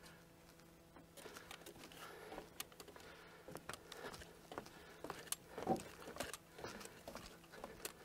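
Footsteps on a wooden boardwalk: an irregular run of knocks and clicks on the planks, roughly two a second, starting about a second in, with the loudest knock about two-thirds of the way through.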